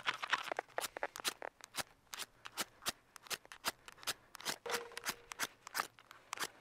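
Liquid-fuel camping stove being lit by hand: a long run of sharp, irregular clicks from repeated igniter strikes at the burner, the burner slow to catch.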